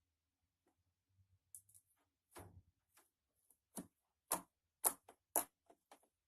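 Slime being pressed and worked by hand, giving an irregular run of short, sharp clicks and pops that get louder from about four seconds in.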